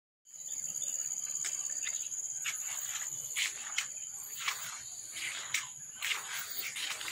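Steady high-pitched insect chorus, with short sharp chirps breaking in at irregular intervals, roughly every half second.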